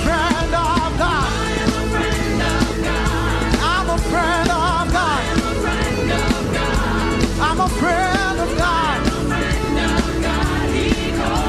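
Live worship band playing: drums and bass under a lead melody line with wide vibrato and quick runs.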